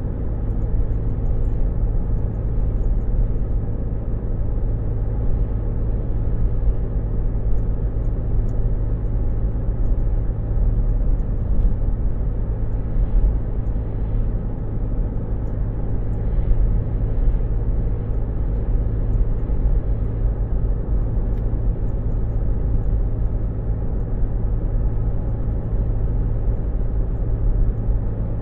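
A car's engine running steadily, heard from inside the cabin as a low, even rumble with no change in pitch.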